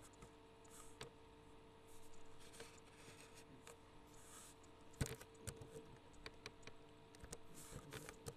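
Faint computer keyboard typing: scattered key clicks, with one sharper click about five seconds in, over a faint steady hum.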